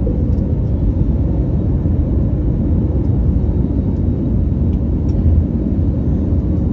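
Airliner cabin noise: a loud, steady low rumble of engines and airflow heard from a window seat, with a faint steady hum on top.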